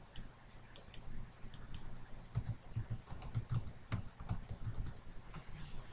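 Typing on a computer keyboard: a run of key clicks, a few at first and then most tightly packed in the middle seconds.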